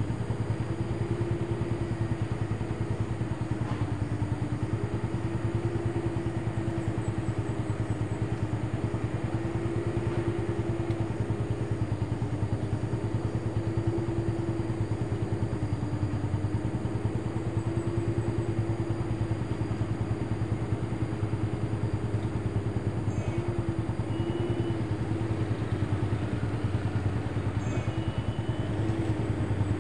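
Steady engine drone of traffic on a steep mountain road, its pitch wavering slightly; a motorcycle rides past near the end.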